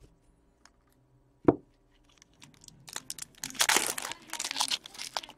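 A foil trading-card pack wrapper being torn open and crinkled, starting a couple of seconds in and getting louder. A single sharp tap comes about a second and a half in.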